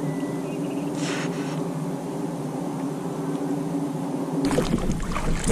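A steady motor drone with several held low pitches, and a brief hiss about a second in. Near the end it gives way to water sloshing and splashing around a small boat.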